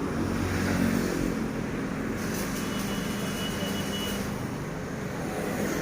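Mini tractor engine running steadily, with a faint high whine for about two seconds in the middle.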